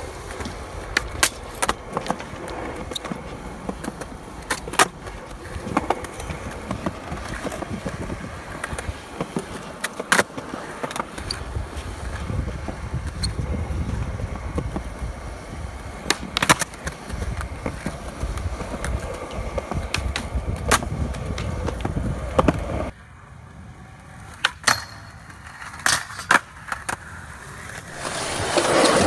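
Skateboard wheels rolling on concrete with sharp clacks of the board scattered through, several of them loud, from pops and landings. The rolling drops away about three-quarters of the way in, leaving a few clacks, and a louder steady noise rises near the end.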